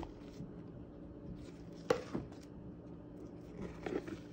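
Hands untying a satin ribbon on a small cardboard gift box on a wooden table: soft ribbon and cardboard rustles, a sharp tap about two seconds in, and a few light knocks near the end.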